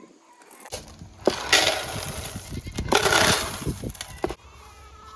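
Loud crunching, rattling noise with two louder surges, cutting off suddenly near the end.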